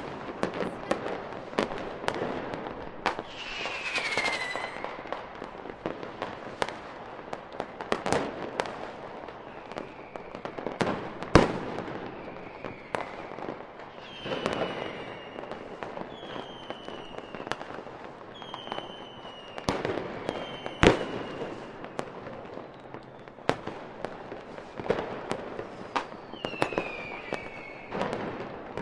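Fireworks going off in quick succession: many sharp bangs and pops over steady crackling, with two much louder bangs partway through. Several short whistles fall in pitch among the bangs.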